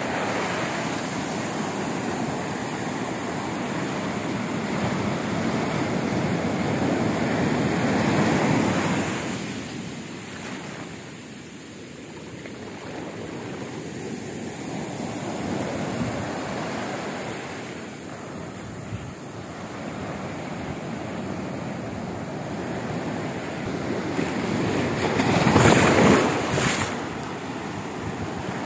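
Indian Ocean surf: waves breaking and foam washing up over the sand in a steady rush that swells and ebbs with the waves, loudest near the end.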